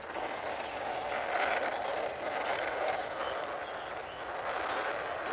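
Toy truck's plastic wheels rolling over rough ground as it is pushed along by hand: a steady, gritty rolling noise.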